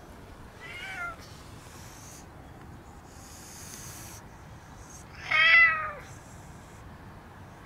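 A cat meowing twice: a short, faint meow about a second in, then a louder, longer one about five and a half seconds in.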